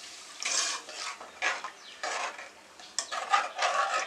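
A spoon or ladle stirring the contents of a pressure cooker in several separate strokes, scraping against the pot.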